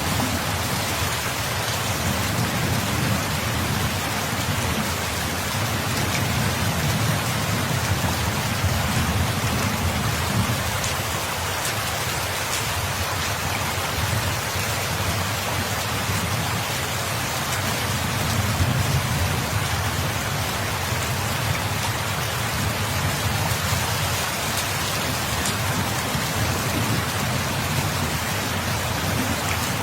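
Steady heavy rain pattering on a surface, with a low rumble underneath that swells and eases a few times.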